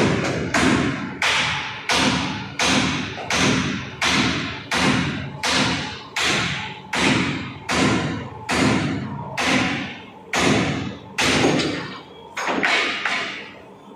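A steady series of heavy strikes on steel, about three every two seconds, each dying away with a short metallic ring. The blows slow slightly near the end.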